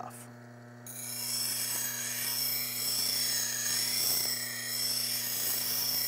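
Steel spindle gouge ground freehand on the CBN wheel of a low-speed bench grinder, grinding away the heel of the bevel. A steady hiss of steel on the wheel sets in about a second in and wavers as the tool is moved, over the steady hum of the grinder motor.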